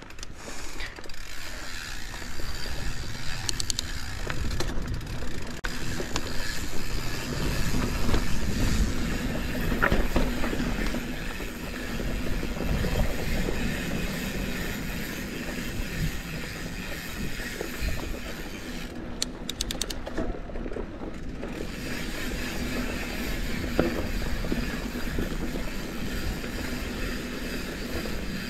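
Santa Cruz 5010 mountain bike rolling over a dusty dirt singletrack: steady tyre rumble and chassis rattle, with wind buffeting the microphone. The rear freehub clicks rapidly in short spells while the rider coasts, once a few seconds in and again about two-thirds of the way through.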